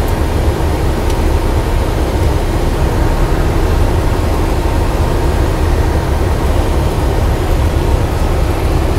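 Steady drone of a Cessna light aircraft's engine and propeller with airflow noise, heard inside the cockpit on approach to land.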